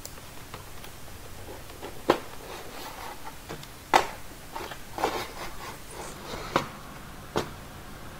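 A hard plastic parts tray is slid out of a cardboard box, rubbing against the cardboard, with about five sharp plastic clicks and knocks spread through it.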